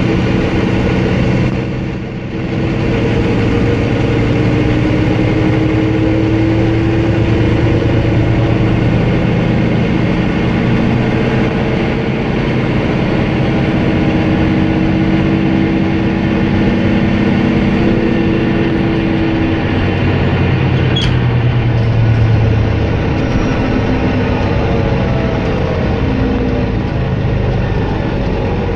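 Volvo B9R coach's diesel engine running under way, heard from inside the passenger saloon over road and body rumble. The level dips briefly about two seconds in.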